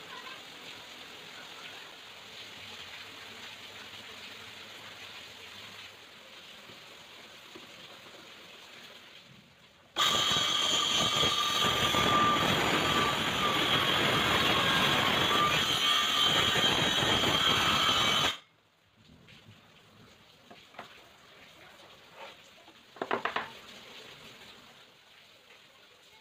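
Cordless circular saw running at full speed and cutting plywood as it travels along the crosscut jig's rail: a steady high whine over the cutting noise, starting suddenly about ten seconds in and cutting off about eight seconds later. A few light knocks follow a few seconds after.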